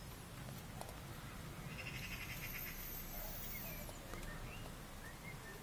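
Birds chirping: a quick run of repeated high notes about two seconds in, and short chirps near the end, over a steady low rumble.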